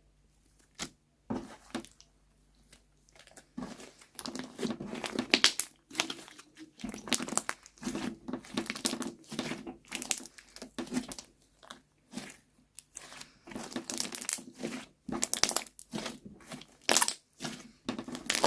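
Slime being squished and worked by hand: after a few scattered clicks, about three and a half seconds in it turns into a dense, irregular run of crinkly, crackling pops that lasts to the end.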